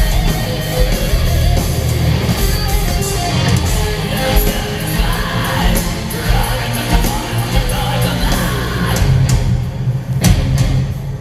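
Melodic death metal band playing live at full volume: distorted electric guitars and drums, with yelled vocals over them. Sharp drum hits stand out near the end.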